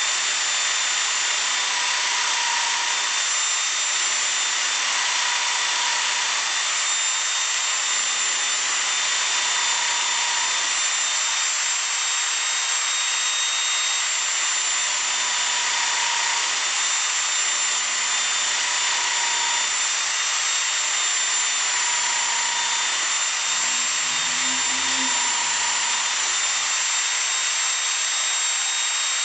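Milling machine end mill cutting aluminium plate: a steady, high-pitched cutting hiss with a thin whine over the running spindle.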